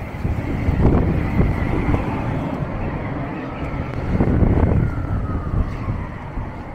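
City street traffic: a steady rumble of vehicles, swelling as vehicles pass about a second in and again around four seconds in.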